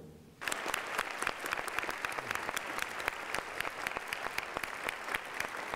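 Audience applauding: many hands clapping together, starting about half a second in after a brief quiet.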